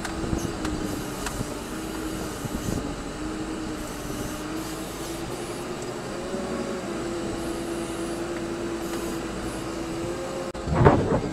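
Compact wheel loader's engine running steadily, heard from inside the cab, with short knocks and rattles in the first few seconds as it moves and works, and a loud knock near the end.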